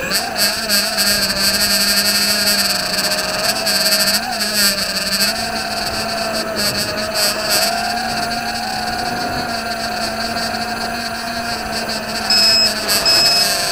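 ZMR 250 quadcopter's four motors and propellers, on a 4S battery, whining steadily as heard from the onboard camera, the pitch wavering up and down with the throttle. Near the end a high electronic beeper starts beeping about twice a second over the motors.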